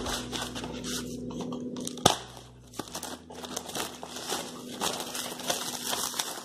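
Clear plastic wrapping crinkling and rustling as hands unwrap a plastic carry-bag dispenser, with one sharp click about two seconds in.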